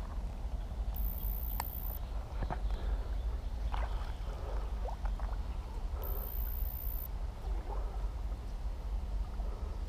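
Water sloshing with a few small splashes and clicks close by, over a steady low rumble.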